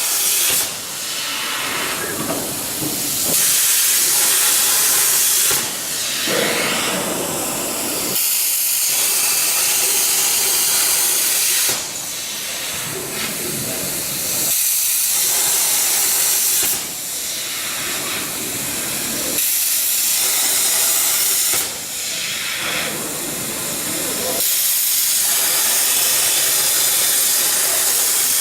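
Plasma cutting torch of a CNC plasma table cutting titanium steel plate: a loud, steady hiss that starts abruptly and keeps running, its tone shifting every two to three seconds.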